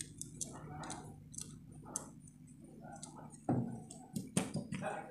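Plastic parts of a small RC off-road car chassis and a wooden strip being handled and knocked together, with two louder knocks about three and a half and four and a half seconds in. A faint regular ticking runs beneath, about twice a second.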